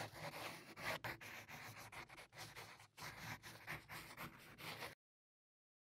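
Pencil sketching on paper: a faint run of short scratchy strokes that stops about five seconds in.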